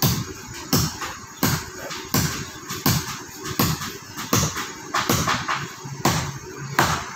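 A steady run of sharp thuds, evenly spaced, about three every two seconds.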